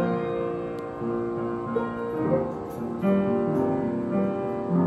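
Upright piano being played, a slow passage of held notes and chords, with new notes struck every second or so.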